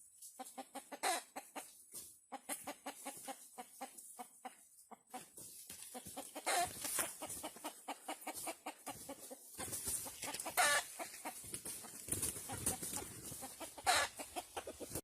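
Chickens clucking: a quick run of short clucks, with a few louder, longer calls about six and a half, ten and a half and fourteen seconds in.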